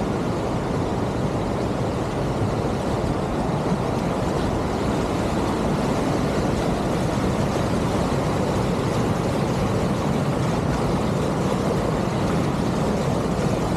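Niagara Falls: a huge volume of water pouring over the brink, a steady, deep rushing noise that never lets up.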